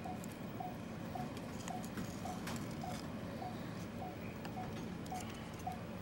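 An electronic device beeping over and over, one short mid-pitched beep about twice a second: a device left unplugged that keeps beeping until it is plugged in. Faint clicks and scrapes of vinyl sheet being trimmed by hand sound under the beeps.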